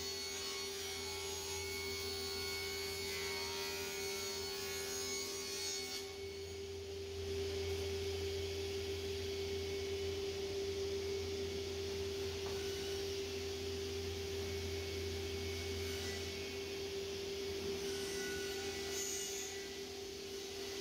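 Sliding panel saw running with a steady hum while a sheet of 6 mm plywood is pushed through on its sliding table for a cut; the sound grows fuller and noisier about seven seconds in.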